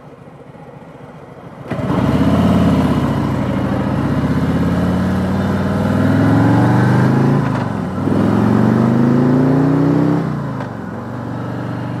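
Harley-Davidson Milwaukee-Eight 107 V-twin idling, then pulling away hard about two seconds in, its pitch rising as it accelerates. Near eight seconds it dips briefly on an upshift, climbs again, and settles to a steadier cruise near ten seconds.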